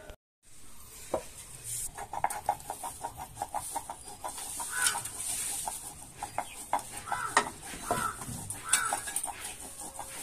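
Cumin and coriander seeds being ground by hand on a flat stone slab with a grinding stone, with a rapid run of short clucking calls through it and a few louder calls near the middle and end.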